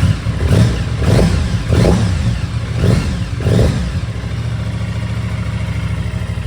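Aprilia Tuono 660 Factory's 659 cc parallel-twin engine on its stock exhaust, blipped about five times in quick succession, then settling to a steady idle about four seconds in.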